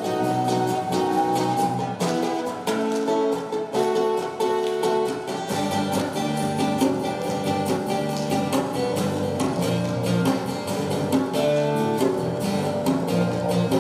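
Live acoustic band playing an instrumental passage: several acoustic guitars strumming over an electric bass line, with an ocarina carrying a melody in held notes.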